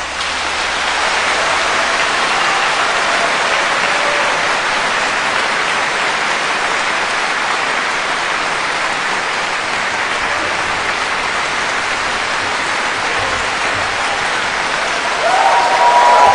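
Large audience applauding, an even, steady clapping that swells slightly near the end.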